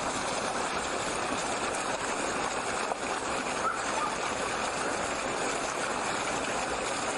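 Steady rush of churning water as a seine net is hauled in and men wade through the shallows inside it.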